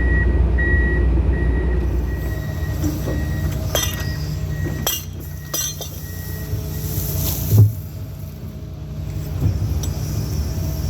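John Deere excavator's diesel engine running steadily, with a few sharp clinks and clanks midway and one louder thump about seven and a half seconds in.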